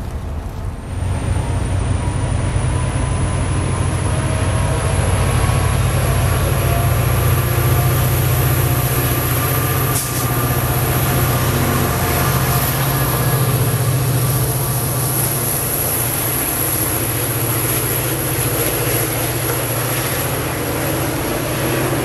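MBTA commuter rail train running past, double-deck coaches followed by diesel locomotive 1050, with the engine giving a steady low drone under several steady tones. A high whine comes in about a second in and slowly rises in pitch.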